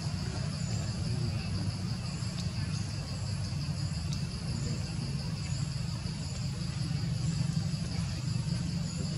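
Insects chirring in a steady, pulsing drone over a steady low rumble.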